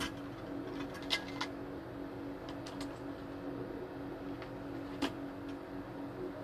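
Plastic stand-fan parts (pole, collar and base) being handled and fitted together, giving a few sharp clicks and knocks, the loudest about a second in and about five seconds in, over a steady low hum.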